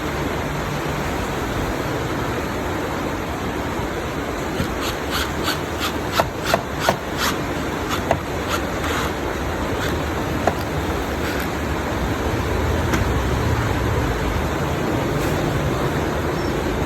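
Screws being fitted into a speaker cabinet: a run of sharp small clicks and clinks, clustered from about five to ten seconds in, over a steady background rumble and hiss.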